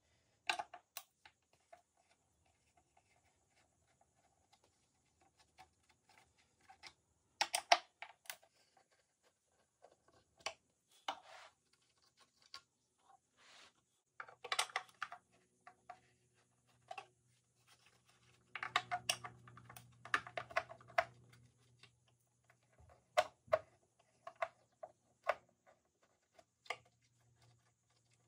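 Small screwdriver and fingers working at the screws under a wooden chair's seat frame: scattered clicks, taps and short scrapes as the screws are turned and handled, with a busier stretch of scraping about two-thirds through.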